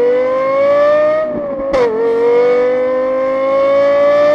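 High-revving car engine accelerating, its pitch climbing steadily, with a quick gear change not quite two seconds in where the pitch drops sharply before climbing again.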